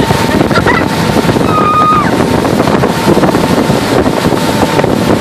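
Motorboat under way, its engine running steadily under heavy wind buffeting the microphone and the rush of water.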